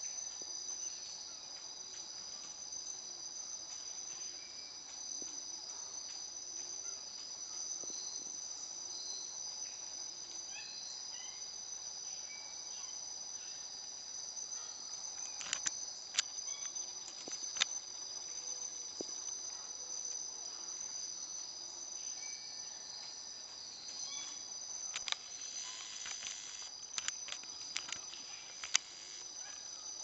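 Steady, high-pitched chorus of insects in the rainforest, a constant two-note drone that never lets up. Faint short bird chirps come now and then, and a few sharp clicks sound in the second half.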